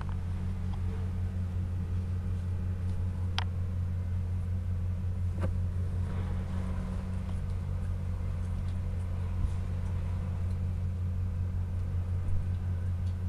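A steady low hum, with two brief clicks, about three and a half and five and a half seconds in.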